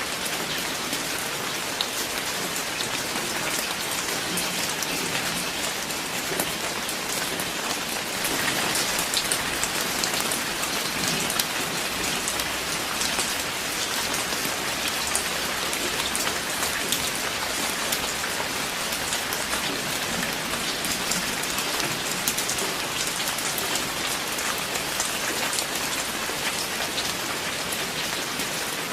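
Steady rain falling, an even hiss scattered with many sharp ticks of single drops striking close by. It grows a little heavier about eight seconds in.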